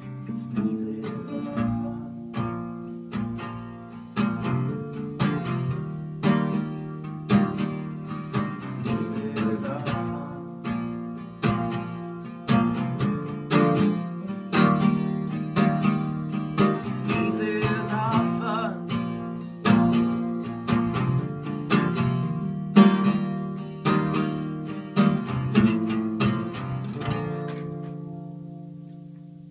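Acoustic guitar strummed in a steady rhythm as the instrumental close of an indie folk song, the chords striking regularly before a last chord rings out and fades away near the end.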